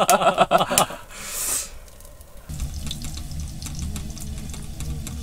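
A man laughing for about the first second, a brief hiss, then a wood-burning camp stove's fire burning steadily: a low rumble with many small crackles of the burning logs.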